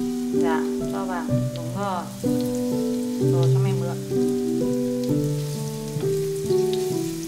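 Background music of held notes that change step by step, with a few short sliding figures. Under it is the faint sizzle of zucchini pancakes frying in oil in a pan.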